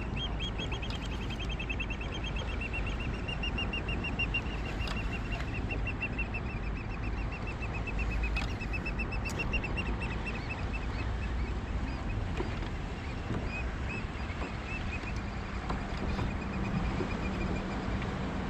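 Fishing reel being cranked steadily as a fish is reeled in, giving a fast, even run of squeaky ticks that thins out near the end, over wind and water noise.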